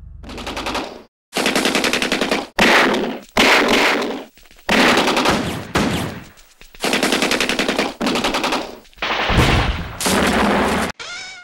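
Automatic gunfire in about ten rapid bursts of roughly a second each, separated by short gaps; one burst about nine seconds in has a deeper boom under it, and a brief rising whine comes at the very end.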